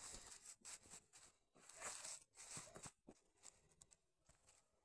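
Near silence with faint rustling and scratching, as a dog's paws and body shift on a cloth rag rug. The scuffling is busiest about two seconds in.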